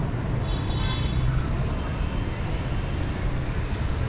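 Urban road traffic: a steady low engine rumble and hum with general traffic noise, and a brief faint high tone about half a second in.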